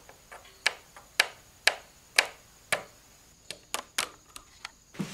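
Small plastic doll's feet tapping on the rungs of a plastic toy playground ladder as the doll is walked up it: five even taps about half a second apart, then a quicker run of lighter clicks.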